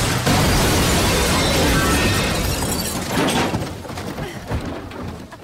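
Car crash: a car smashes through stacked cardboard boxes into a parked car, with glass shattering. The din fades over the last two seconds, with a few late knocks of falling debris.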